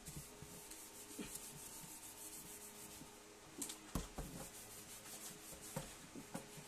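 Soapy kitchen sponge scrubbing a wooden cutting board in a stainless steel sink. The rubbing is faint, broken by a few light knocks.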